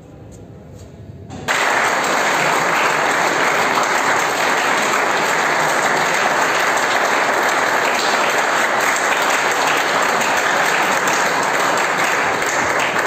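Audience applauding: the clapping starts abruptly about a second and a half in and then keeps up steadily.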